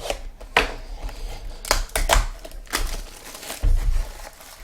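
Trading card packs and cards being handled: wrapper crinkling and cards rustling in several short, sharp bursts, with a dull low bump about three and a half seconds in.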